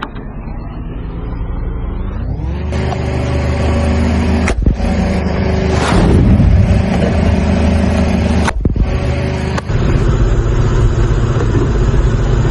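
Car engine running, speeding up about two seconds in and then holding a steady pitch. A few sharp clicks and a short noisy burst near the middle.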